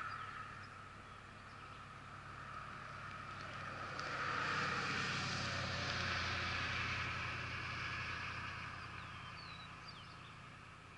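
Motorcycle engine running steadily, with a broad rushing noise that swells about four seconds in and fades toward the end. A few faint bird chirps come through.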